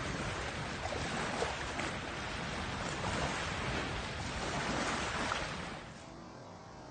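Wind blowing across the microphone over choppy open water, with waves washing. The noise drops away to a faint hiss near the end.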